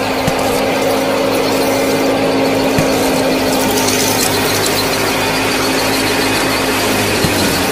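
Small motor-driven model wheat thresher running steadily with a constant whine, a fast, even high-pitched ticking joining about halfway through.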